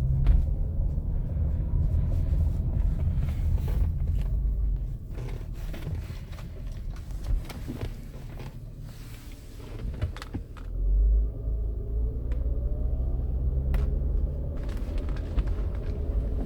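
2008 Acura MDX 3.7-litre V6 running in gear as it pulls through low revs: a heavy low rumble, tones gliding upward in the second half, and scattered sharp knocks. This is the low-rpm rattle (1000–2000 rpm in Drive) that appeared after the timing belt, engine mounts and rollers were replaced, and that no one has yet traced.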